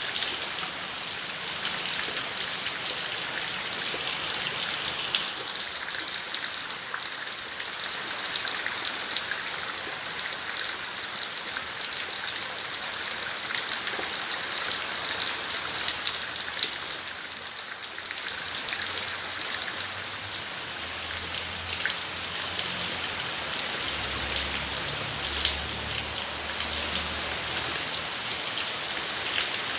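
Steady rain falling in a garden, a dense hiss of drops with many small spattering ticks.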